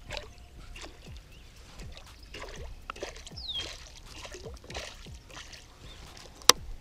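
A small musky splashing and thrashing at the surface on a walk-the-dog topwater lure beside the boat, in a series of short splashes. A single sharp click near the end.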